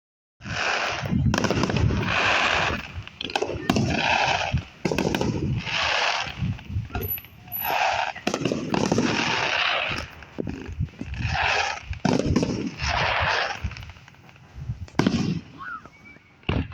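Fireworks going off in quick succession: a dense run of sharp pops and crackling bursts, each lasting about a second, thinning out near the end.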